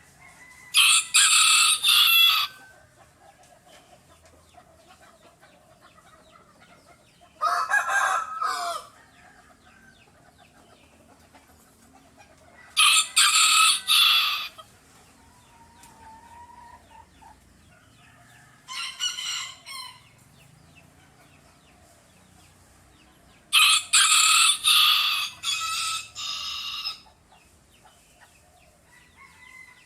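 Roosters crowing in turn: five separate crows a few seconds apart, the second lower-pitched and the last the longest, with faint backyard sounds between them.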